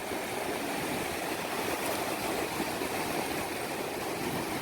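Sea surf washing onto the beach, a steady rushing noise.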